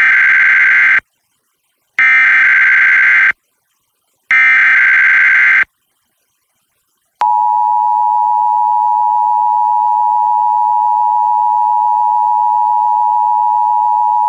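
Emergency Alert System header: three identical bursts of warbling digital SAME data, each about a second long, about two seconds apart. After a short silence, about seven seconds in, the EAS attention signal starts: a steady two-tone alert at 853 and 960 Hz, heard as played over FM radio.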